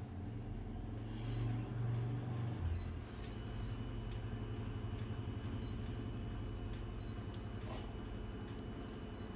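A steady low mechanical hum, a little louder for the first three seconds, with a few faint short high blips.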